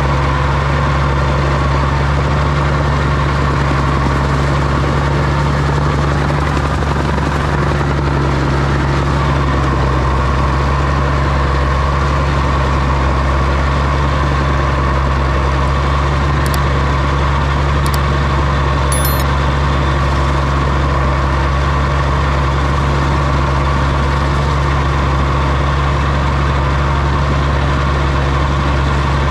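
Oliver OC-6 crawler tractor's engine running steadily at an even pitch, with a few brief faint high-pitched squeaks around the middle.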